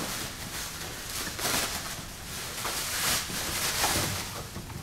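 Plastic packaging and bubble wrap rustling and crinkling in uneven bursts as they are pulled off and handled.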